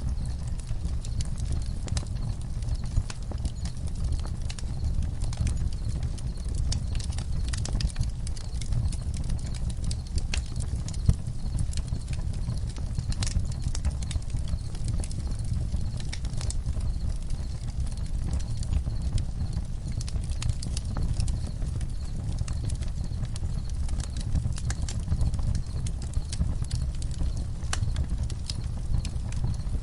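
Campfire burning, with frequent irregular sharp crackles and pops of burning wood over a steady low rumble; one pop about eleven seconds in is louder than the rest.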